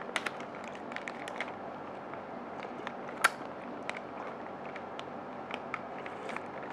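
Faint clicks and small plastic handling noises as a person lifts a plastic pouch of lemon drink and sips from it, with one sharp click about three seconds in, over steady low background noise.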